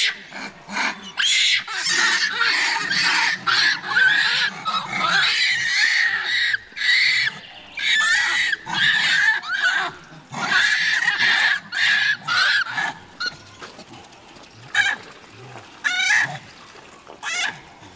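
Repeated short, high-pitched squeals of a prey animal held in a Komodo dragon's jaws, coming about twice a second, then growing sparser and fainter over the last few seconds.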